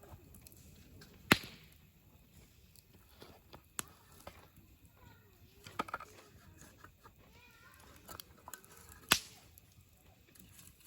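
Wood campfire burning with faint crackling and a few sharp pops: a loud one about a second in, two smaller ones in the middle, and another loud one near the end.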